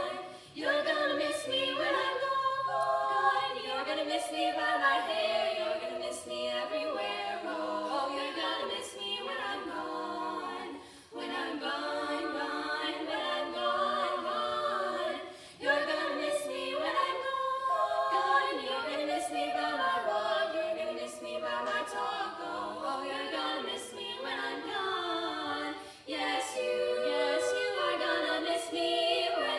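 Female vocal quartet singing a cappella in close four-part harmony. The song runs in long sustained phrases broken by brief breath pauses.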